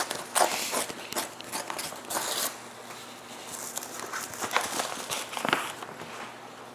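A mailed package being opened by hand: rustling and crinkling of packaging with scattered sharp clicks and tearing noises.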